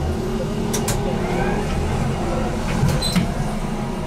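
BN GTL8 articulated tram running on its track: a steady low rumble with a faint motor whine that rises about a second and a half in, and a few sharp clicks.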